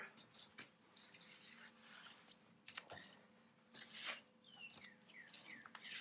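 A wheel with its summer tire being rolled across a concrete floor: irregular light scuffs and rubs, a few quick ones close together and a longer one about four seconds in.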